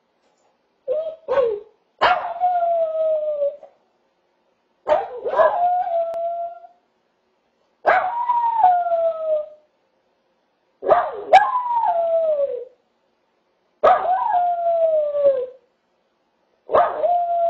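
Small white puppy howling over and over: a short yip about a second in, then six drawn-out howls about three seconds apart, each opening with a sharp yelp and sliding down in pitch.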